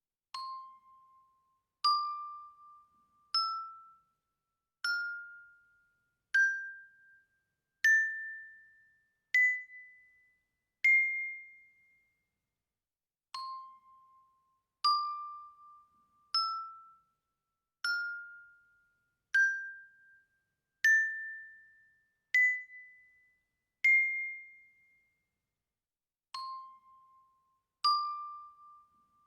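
Bell notes struck one at a time, about every second and a half, each ringing briefly and dying away. They climb step by step up an eight-note scale, start again from the bottom, and go round twice before a third run begins near the end.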